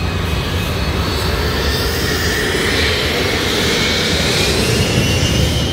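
Jet engines of small jets taxiing out onto the runway: a steady loud rush with a high turbine whine that slowly rises in pitch.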